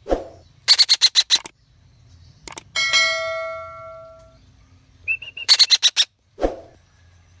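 Young betet parakeet giving two quick runs of about six harsh, rapid calls each, with a short high call between them. Between the runs, a small bell is struck once and rings out for about a second and a half.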